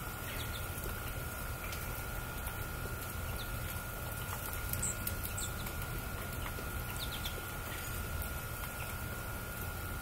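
Small songbirds giving a few short, high chirps, two sharp ones about halfway through, over a steady low rumble and a faint steady whine.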